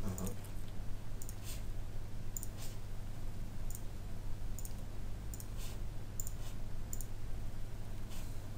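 Computer mouse clicking: sharp clicks, often in quick pairs, every second or so, over a steady low hum.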